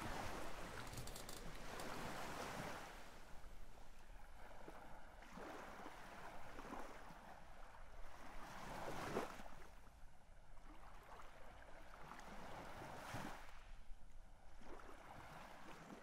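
Sea waves washing in slow surges every few seconds, with no tune or voice.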